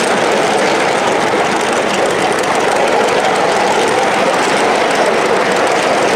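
A 1-inch-scale live-steam 0-4-0 switcher locomotive running at speed, heard from the riding car just behind it: a steady, loud noise of the engine working and the wheels running on the track, with no pauses.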